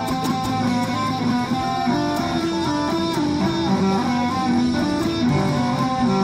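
Electric guitar playing the song's chord part, with chords changing every half second or so.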